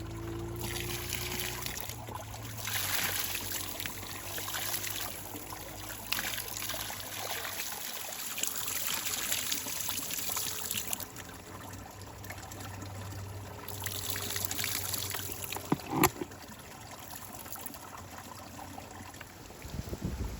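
Water trickling and pouring in spells that stop and start, with a single sharp knock about 16 seconds in.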